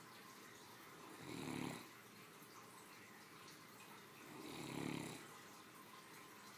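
A sleeping Great Dane snoring: two low snores about three seconds apart, each under a second long.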